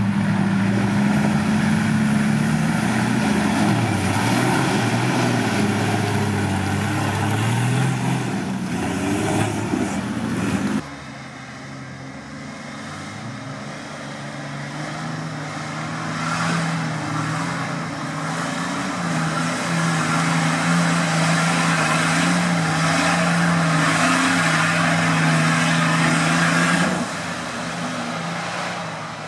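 Off-road 4x4 engines working hard through deep mud ruts, the engine note rising and falling as they rev. About eleven seconds in the sound cuts to a quieter, steadier engine drone that grows louder as the next vehicles come closer.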